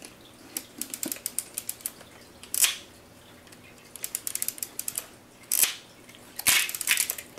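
Pentax 6x7 medium-format camera being handled during film loading: a run of small quick clicks, then several louder separate clicks and snaps of its parts.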